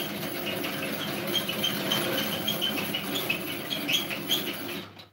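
Hand-cranked rotary egg beater whisking eggs in a plastic bowl: a steady mechanical rattle with many short, high ticks. It stops abruptly near the end.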